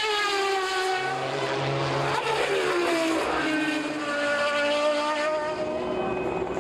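Group C sports-prototype race car engines at high revs passing by. The engine note falls in pitch as a car goes past about two seconds in, then holds steadier before changing again near the end.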